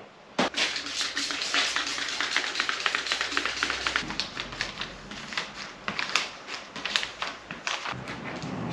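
A quick, irregular run of sharp clicks and taps, several a second.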